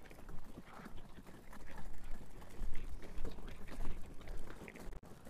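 Footsteps and small wheels on a gravel path: an irregular run of scuffing steps from several walkers and dogs, with the wheels of dog wheelchairs and a pushed wagon rolling over the stones.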